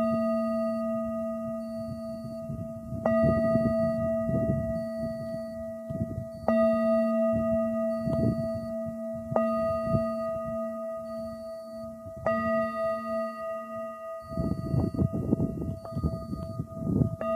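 A struck metal bell-like instrument ringing with a low hum and several higher overtones. It is struck again about every three seconds, four times, and each strike slowly fades. Wind gusts buffet the microphone underneath, heaviest near the end.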